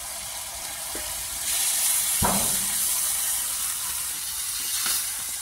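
Chopped vegetables pouring from a metal bowl into a hot oiled wok of frying tomatoes. The sizzling grows louder about one and a half seconds in, and a single knock sounds a little after two seconds.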